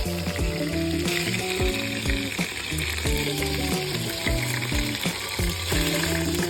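Chicken thighs sizzling in hot oil in an Instant Pot on its sauté setting, under background music with a steady beat.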